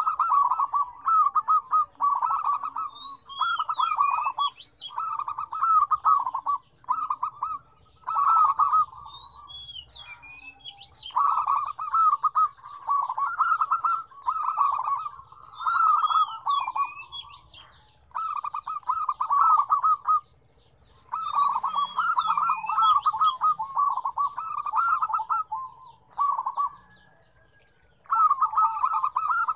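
Several zebra doves (perkutut) cooing, their calls overlapping. Each phrase is a rapid run of staccato coo notes lasting a second or two, and the phrases repeat with short pauses between them.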